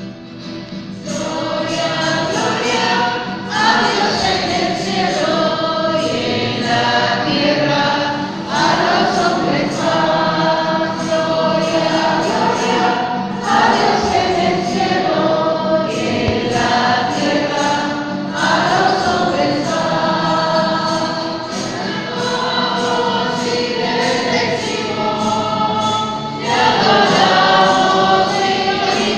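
Music: a choir singing a hymn over an instrumental backing, in long sung phrases with a steady light beat.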